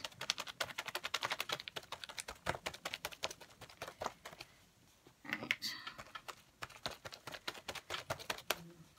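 Paint-loaded sponge tapped quickly and repeatedly on a journal page, several light taps a second, with a short pause about halfway.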